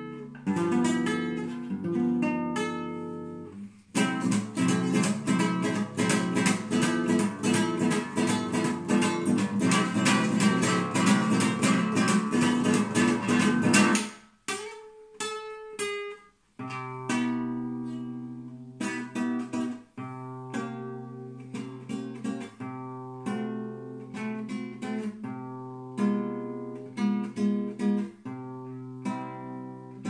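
Classical acoustic guitar played solo: plucked chords at first, then from about four seconds a long stretch of fast, loud strumming that stops sharply about fourteen seconds in. After a short pause with a few single notes, slower plucked chords and arpeggios follow.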